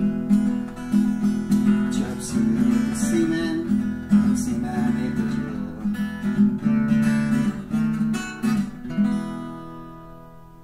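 Acoustic guitar being strummed in a steady rhythm. Near the end the strumming stops and a last chord is left to ring and fade away.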